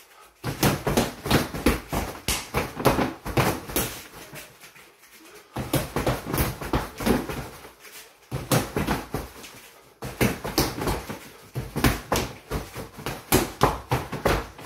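Rapid punches landing on a freestanding mannequin-style punching bag (body opponent bag), several strikes a second, in three flurries with short pauses about five and nine seconds in.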